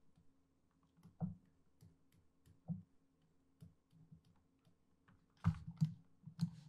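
Scattered clicks of a computer mouse and keyboard, with a quick run of louder clicks near the end, over a faint steady hum.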